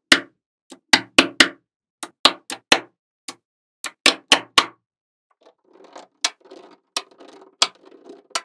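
Small neodymium magnet balls snapping together in sharp, irregular clicks, several close together. From about halfway on comes a softer, steady rattle of balls rolling and shifting against one another, broken by a few more snaps.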